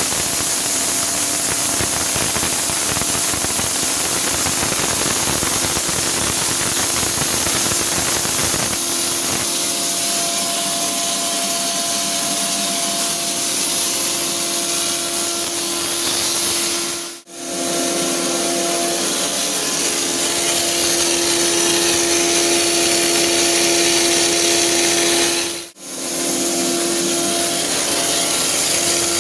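Steady hiss and crackle of arc welding on a gantry welding portal running a seam along a steel beam, under a steady droning machine hum. The noise drops out briefly twice, in the second half.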